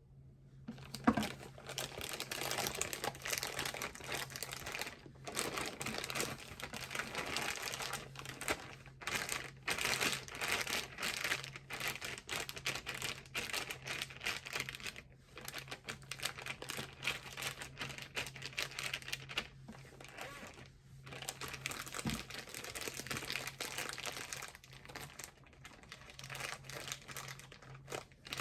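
Plastic crinkling and rustling as a bag is handled, in bouts broken by short pauses, over a low steady hum.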